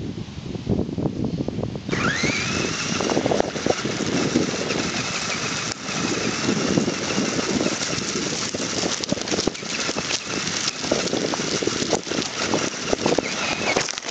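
RC crawler's motor and gears whining as it drives, the whine rising in pitch as it pulls away about two seconds in and falling off just before it stops. Tyres knock and crunch over gravel and stones throughout.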